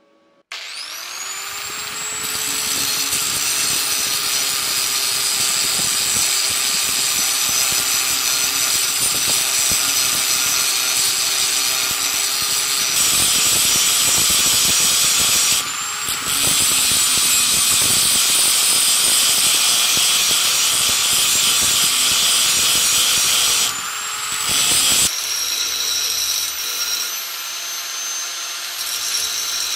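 Angle grinder spinning up with a rising whine about half a second in, then grinding down weld beads on a steel bayonet blade with a steady, loud grinding noise. It drops off briefly twice, and over the last few seconds the grinding turns lighter.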